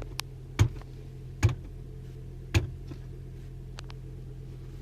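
Steady low hum of a car's cabin, with a handful of sharp clicks at uneven spacing.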